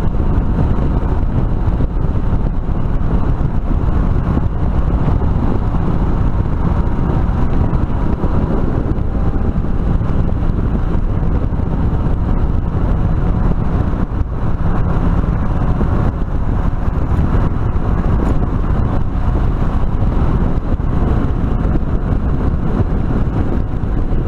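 Suzuki DR650 single-cylinder engine running steadily at cruising speed, mixed with heavy wind rush on a helmet-mounted action camera's built-in microphone.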